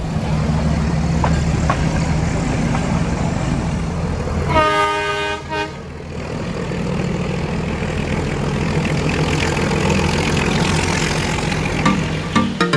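Nilgiri Mountain Railway train running with a steady low rumble, its horn sounding one blast of about a second near the middle.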